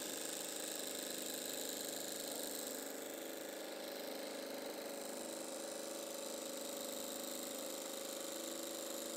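A steady mechanical hum from a small motor, running evenly at a low level with several held tones.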